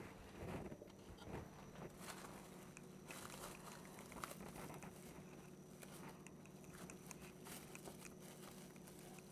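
Faint crinkling and rustling of plastic cling wrap, with small irregular crackles and taps, as crumbly pastry dough is pressed and folded inside it on a stone countertop. A steady low hum runs underneath.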